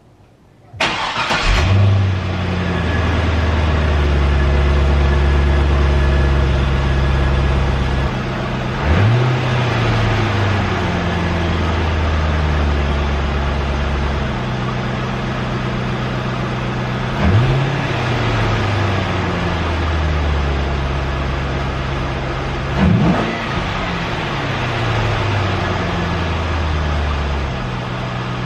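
A 2004 C5 Corvette's LS1 V8, still on its stock intake, starts up about a second in and settles into a steady idle. It is blipped briefly three times, each rev rising sharply and falling back to idle, with a fourth blip starting at the very end.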